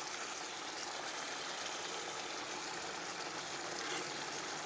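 Meat and potato curry simmering in a kadai on a gas stove: a steady bubbling sizzle.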